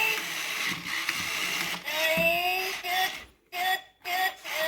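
Furby toy's electronic voice chattering in high, gliding tones, over the running of its internal motor and gears. The voice breaks off briefly twice a little past three seconds in.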